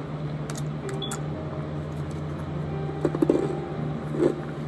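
A foil sheet-mask packet being handled, with a few light clicks and two short crinkling bursts about three and four seconds in, over a steady low hum.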